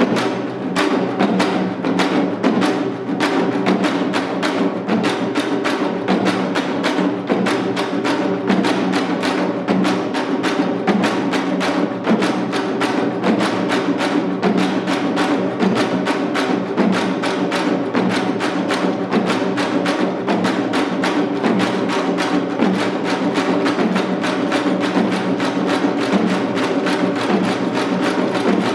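Janggu (Korean hourglass drums) played in seoljanggu style: a fast, dense, unbroken run of drum strokes over a steady ringing tone.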